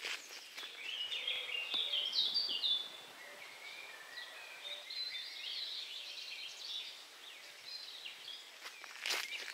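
Songbirds singing: a run of quick, varied notes in the first few seconds and another phrase around the middle. Footsteps on a dirt track start again near the end.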